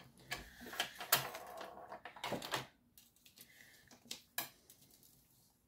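Scored cardstock being handled and folded by hand on a cutting mat: paper rustling, with a few light taps and clicks.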